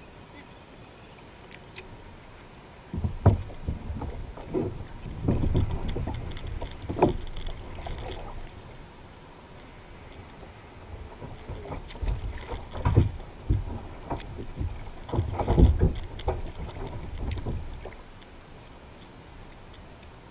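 Low thumps and knocking of a small boat on the water, in two spells a few seconds long.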